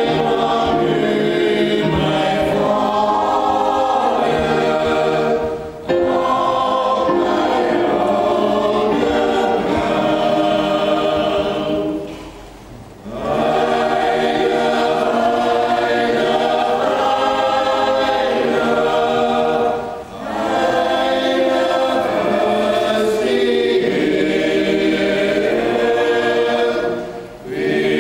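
Small mixed church choir of women's and men's voices singing a hymn together in sustained phrases, breaking briefly for breath four times.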